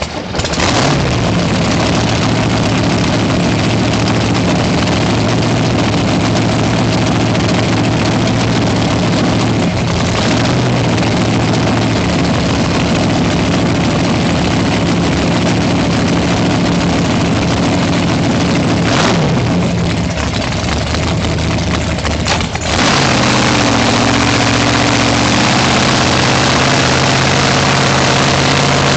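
Sanger hydroplane race boat's engine running steadily at low speed. About three-quarters of the way through it dips briefly, then settles at higher revs as the throttle opens.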